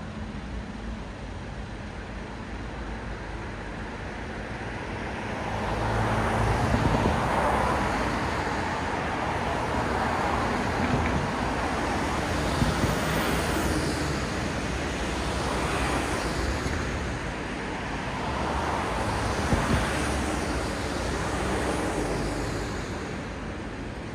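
City road traffic: cars and other vehicles passing with engine and tyre noise. It grows louder about six seconds in, then swells and fades as several vehicles go by.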